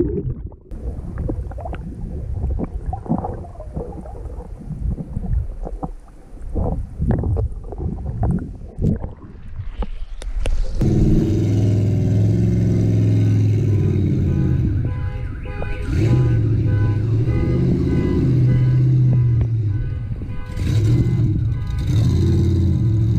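Water sloshing and gurgling around a camera dipping under the sea surface, muffled and choppy. About eleven seconds in it cuts to a vehicle engine running steadily, its pitch rising and falling a few times.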